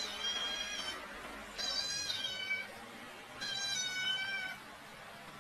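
A cat meowing over and over: three drawn-out meows of about a second each, with short pauses between them.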